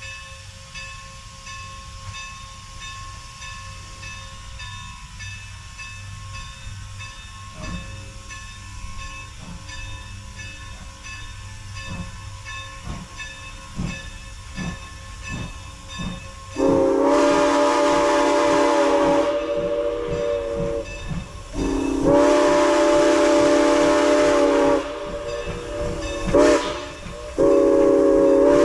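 Steam locomotive 475, an ex-Norfolk and Western 4-8-0, working past: its exhaust chuffs grow louder, then its steam whistle blows the grade-crossing signal, long, long, short, long.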